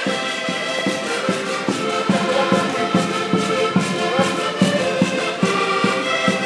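A group of Portuguese concertinas (diatonic button accordions) playing a traditional tune together while marching, over a steady beat about two and a half times a second.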